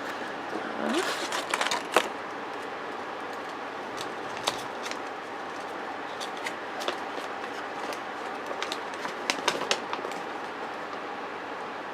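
Small toy-handling noises: sparse light clicks and a brief rustle, like a small plastic Shopkins figure and its packaging being handled, over a steady faint room hiss.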